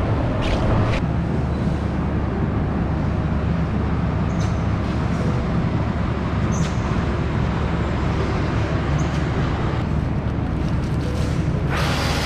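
Steady low rumble of background noise on a factory floor, with a few faint ticks. Near the end a louder rustling hiss comes in as plastic film is handled around a bike.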